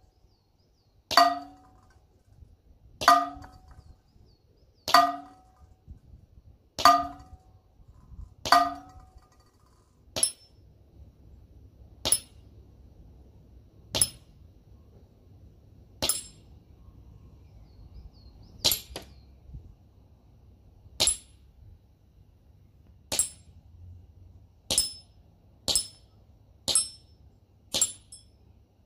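BBs from a .177 BB rifle striking a metal reactive target, each hit a sharp ringing clang, about one every two seconds, some seventeen in all. The first five hits ring lower and fuller; the later ones give a thinner, high-pitched ping, and the hits come faster near the end.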